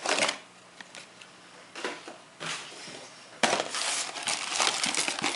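Handling of a cardboard phone box: a short scrape at the start and a few faint knocks, then from about three and a half seconds in, continuous rustling and crinkling of a plastic bag.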